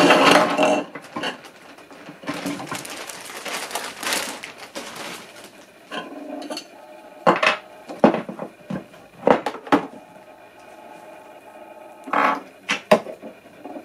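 A plastic bag rustling and crinkling as it is opened and emptied, then hard plastic pump fittings and fountain nozzles set down one by one on a counter, about eight separate knocks and clatters.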